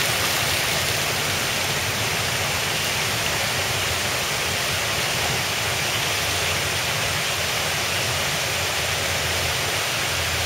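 Small waterfall running over rock, a steady, even rush of water.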